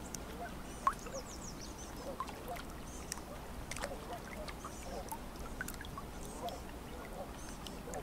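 A chorus of birds calling by the water: many short, scattered calls, some low and some high and thin, with one sharper call a little under a second in, over a faint steady background.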